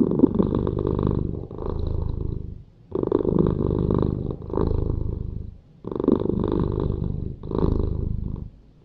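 A cat purring loudly in about six long rumbling phrases, each broken by a short pause for breath.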